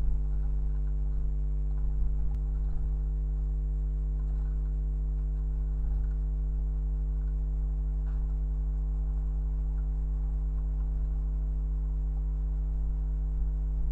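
Steady low electrical hum with a stack of even overtones, the trail camera's own recording noise, with a few faint short ticks and chirps now and then.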